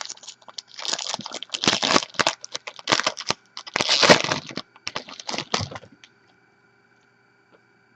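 Trading-card pack wrapper being torn open and crinkled by hand, in a run of crackling rustles, stopping about six seconds in.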